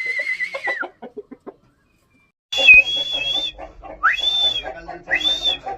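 Aseel chickens clucking while a person whistles to call them to feed. A long steady whistle ends just under a second in. After a short quiet gap, a run of short rising whistles starts, with the clucking around them.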